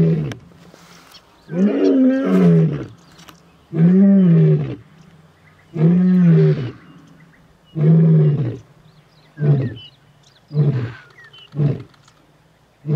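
Male lion roaring: four long, low roars about two seconds apart, then a run of shorter grunts about a second apart that taper off near the end.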